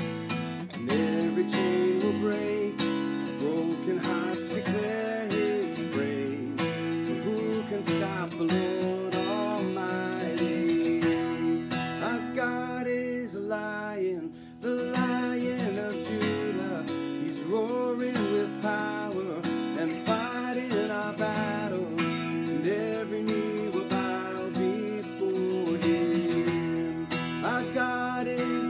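Takamine acoustic guitar strummed steadily while a man sings the melody of a worship song along with it.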